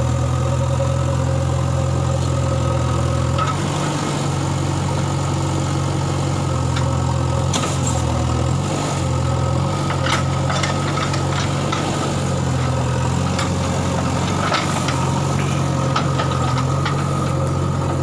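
JCB backhoe loader's diesel engine running steadily, its low hum shifting as the load changes, with scattered sharp knocks through the second half.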